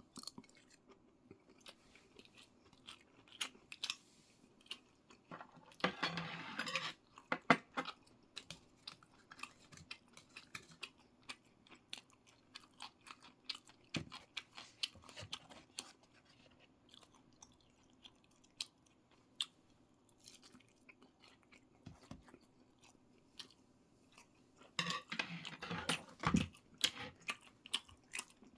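A person chewing food close to the microphone, with many small wet mouth clicks. There are two louder, noisier stretches: one about six seconds in and one near the end.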